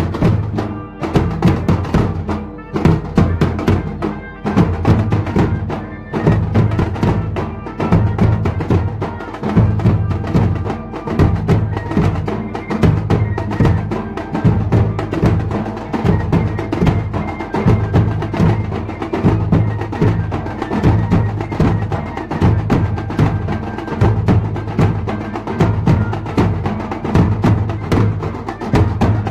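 Drums beating a dense, steady rhythm of sharp strikes over deep booms, with a thin melodic line faintly audible above them.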